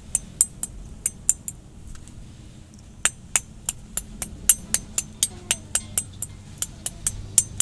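Hard-boiled eggs being knocked against something hard to crack their shells for peeling: a quick run of sharp clicks, a short pause, then steady clicking about four times a second.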